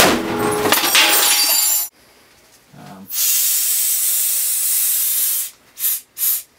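A hydrogen–oxygen gas balloon exploding inside a cardboard box: one sharp bang, then about two seconds of debris with some ringing. About three seconds in, a steady hiss of compressed gas flowing from a cylinder regulator into a balloon.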